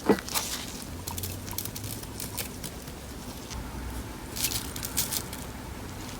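Crunch slime packed with beads being worked by hand, giving short bursts of crackling and squishing, after a sharp knock right at the start.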